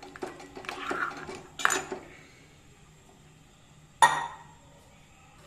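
Metal ladle stirring and scraping in a metal cooking pot, with clicks and scrapes for the first two seconds. Then a pause and a single sharp ringing clink of metal on metal about four seconds in.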